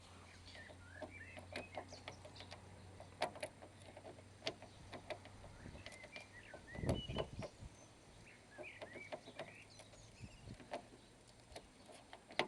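Metal auto jiggler key rattling and clicking irregularly in a Subaru Impreza's double-sided wafer door lock as it is picked. Birds chirp in short bursts behind it.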